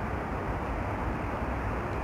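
Steady city street background noise: a low, even traffic rumble with no distinct events.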